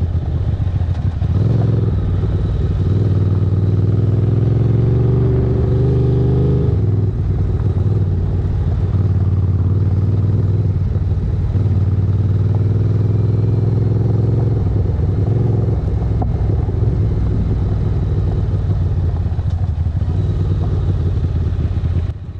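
Motorcycle engine running under way, its pitch climbing as it accelerates about a second in and again about twelve seconds in.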